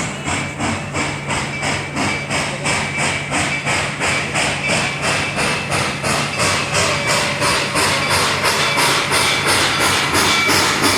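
Reading 2102, a 4-8-4 steam locomotive, chuffing in an even rhythm of about four exhaust beats a second, the beats quickening slightly as it gets under way. A steady low hum runs underneath.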